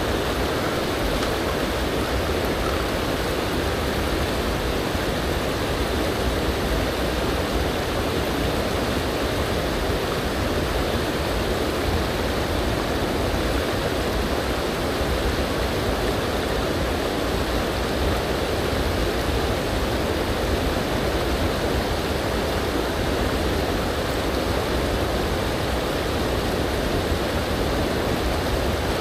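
Water of a shallow, stony river riffle rushing steadily.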